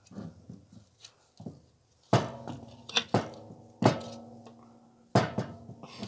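Five sharp knocks with a metallic ringing after them as a plastic fan is worked and tugged off a clothes dryer motor's shaft. The first comes about two seconds in, and the last shortly before the end.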